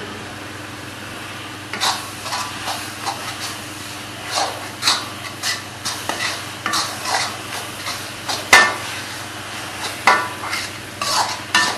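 A spoon stirring chicken in a frying pan, scraping and knocking against the pan in quick irregular strokes over a steady sizzle. The stirring starts about two seconds in.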